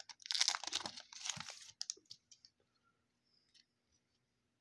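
Plastic trading card pack wrapper crinkling and tearing as it is ripped open, for about the first two seconds, followed by a few faint clicks as the cards are handled.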